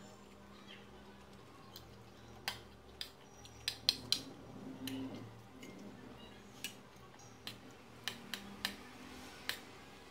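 Spoons clinking and scraping on a ceramic dinner plate and a plastic bowl: a dozen or so short, sharp clinks at uneven intervals, the loudest pair about four seconds in.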